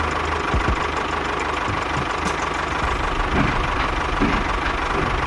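An engine running steadily at idle, with an even, unchanging sound.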